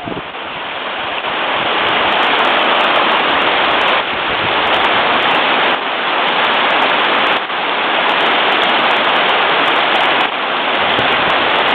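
Water rushing through a gap in a beaver dam, a steady hiss that builds over the first couple of seconds and then holds.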